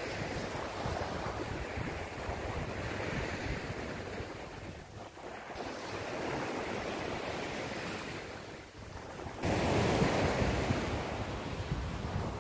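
Surf washing onto a sandy beach, with wind buffeting the microphone. The wash jumps suddenly louder about three-quarters of the way through.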